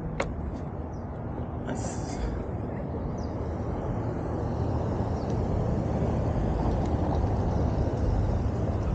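Street traffic at an intersection: cars and pickup trucks driving past, a steady low rumble that grows gradually louder toward the end.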